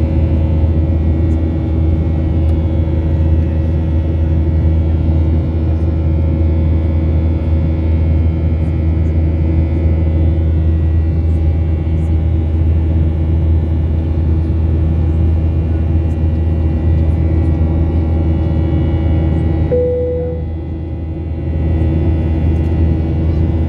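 Airliner cabin noise in flight: the steady low drone of the jet engines and airflow. About twenty seconds in, the drone dips briefly and a short single tone sounds.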